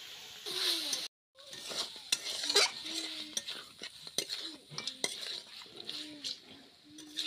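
Mutton pieces frying in spiced oil in a metal karahi, sizzling as a metal spatula stirs them, with repeated scrapes and clinks of the spatula against the pan. The sound drops out briefly about a second in.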